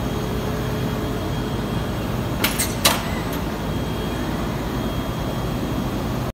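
Steady machine hum of a robotic vacuum-gripper wood-stacking cell, with a quick run of three sharp clacks about two and a half seconds in.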